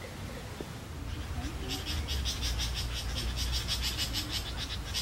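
An animal's rapid high trill, evenly pulsed at about eight to ten pulses a second, starting a couple of seconds in and carrying on, over a low rumble.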